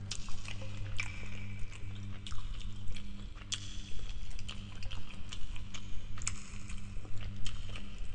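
Close-miked chewing of spaghetti and prawns: irregular wet mouth clicks and smacks, several a second, over a steady low hum.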